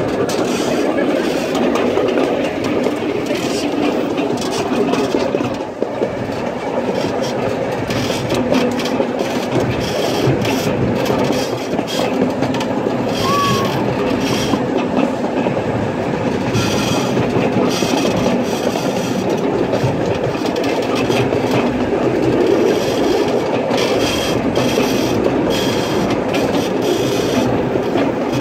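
Miniature railroad train running, heard from a passenger car: a steady rumble of the wheels on the track with irregular clicks and clacks over the rail joints.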